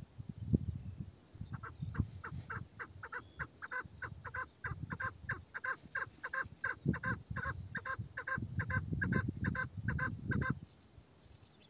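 Old female chukar partridge, a decoy hen, giving a long run of rapid, evenly spaced clucking calls, about three a second, starting about a second and a half in and stopping shortly before the end. Her call is male-like in voice.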